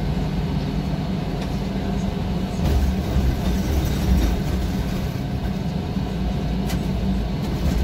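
Bus running noise heard from the driver's seat inside the cabin: a steady engine drone with road rumble. A deeper rumble swells for a couple of seconds about three seconds in.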